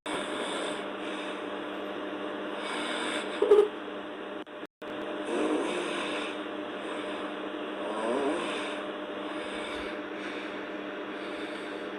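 Girl snoring in her sleep: a few slow snores a couple of seconds apart, the sharpest and loudest about three and a half seconds in, over a steady hiss and faint hum.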